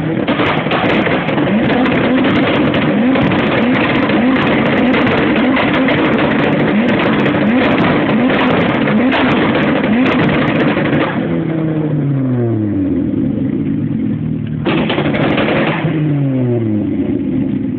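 Ford Focus drift car's turbocharged 2.5-litre five-cylinder engine revved hard, its pitch rising and dipping about once a second for roughly ten seconds. The revs then fall away in a long drop, are blipped up once more about 15 seconds in, and fall again.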